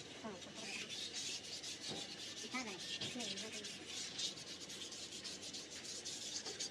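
Abrasive back-and-forth scraping strokes, like hand sanding or filing, a few strokes a second that quicken in the second half.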